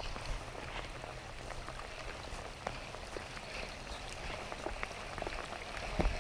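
Steady rain falling, an even hiss with many scattered sharp drop ticks and a slightly louder tick near the end.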